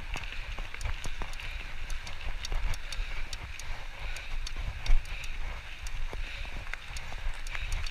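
Bicycle tyres crunching over a gravel trail, with many sharp clicks and rattles from the bike over a low rumble. A louder knock about five seconds in.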